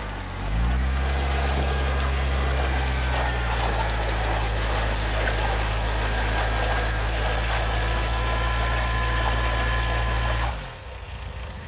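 Homemade mini-tractor's engine revving up about half a second in and held steady under load, then dropping back about a second before the end. The tractor is stuck, its rear wheel spinning in wet river gravel.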